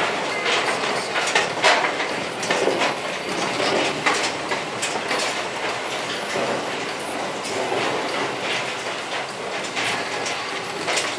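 Car tyres rolling slowly along the steel deck of car-carrier rail wagons, heard from inside the car: a steady rumble broken by irregular clanks and clunks as the wheels cross plates and joints, the loudest about a second and a half in.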